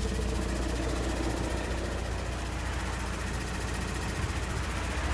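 2013 Volkswagen Passat TDI four-cylinder diesel idling in neutral with the clutch pedal released, with a steady, rapid ticking from where the engine meets the manual transmission. The ticking is heard only with the clutch out and goes away when the pedal is pressed.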